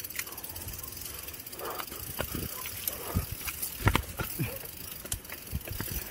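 Mountain bike rolling fast down a dirt singletrack: tyres rumbling over the ground while the bike's frame and parts rattle and knock over bumps, with the hardest knock about four seconds in.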